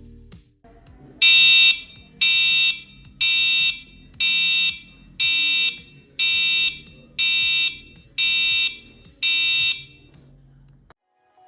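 Truck reversing beeper (backup alarm) sounding its beep-beep warning: nine high-pitched beeps, about one a second, each lasting about half a second.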